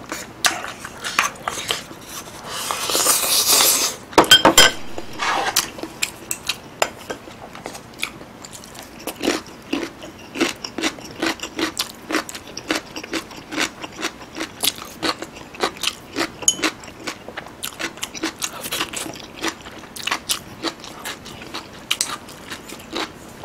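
Close-miked eating sounds: a long slurp of spicy stew from a spoon about two to four seconds in, a few sharp clicks, then steady rhythmic chewing with many small wet mouth clicks and crunchy bites, including seasoned garlic scapes.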